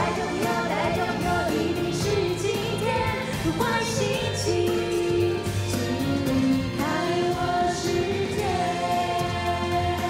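A woman singing a Mandarin pop song live with band accompaniment.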